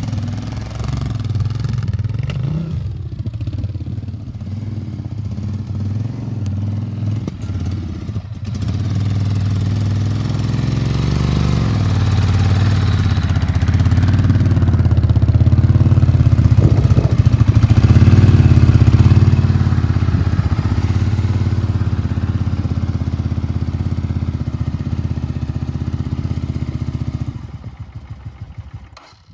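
Suzuki VS800 Intruder's 805 cc V-twin engine idling steadily, louder for several seconds in the middle. Near the end it is switched off and runs down in a few fading pulses.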